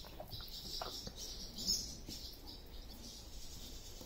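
Barn swallows twittering, a run of high chirps with one louder call a little before halfway.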